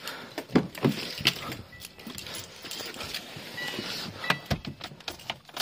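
Scattered clicks and knocks of a car door being handled and someone climbing into the car, with a heavier thump about four and a half seconds in.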